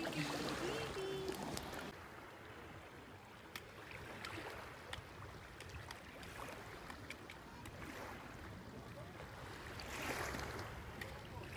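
Small waves lapping in shallow water, a soft steady wash with scattered faint ticks.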